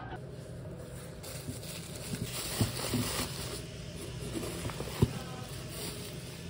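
Crinkling and rustling of bubble wrap and foil shampoo pouches being handled in a cardboard box, busiest between one and three seconds in, with a single sharp tap about five seconds in.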